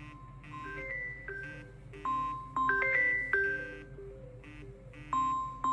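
Smartphone ringtone: a short chiming melody of bell-like notes that repeats about every three seconds, getting louder over the first two seconds.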